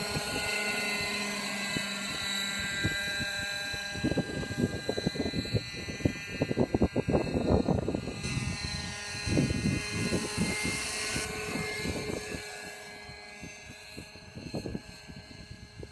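Radio-controlled scale BO 105 model helicopter flying, its rotor and drive giving a steady high-pitched whine, with loud uneven gusty noise through the middle stretch.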